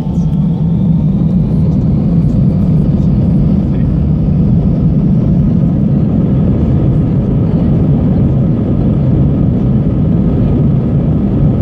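Airbus A320's jet engines spooling up for take-off, heard from inside the cabin: a loud steady rumble with a whine that rises in pitch over the first few seconds.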